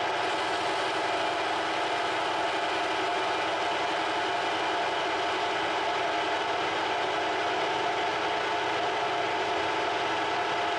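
Metal lathe running steadily while its cutting tool takes a facing cut across the end of a steel bar. The sound is an even mechanical hum with several held tones that does not change.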